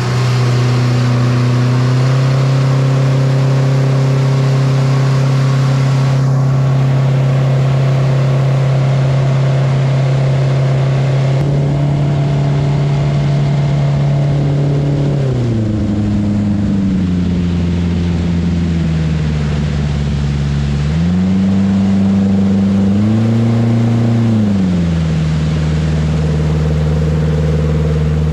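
Outboard jet motor on a jon boat running under way at cruising speed. The engine note drops about halfway through as the throttle eases back, rises again for a few seconds, then settles at a lower speed.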